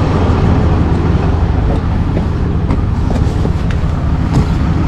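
Tow truck's diesel engine running steadily at idle: a low, even drone with a few light clicks.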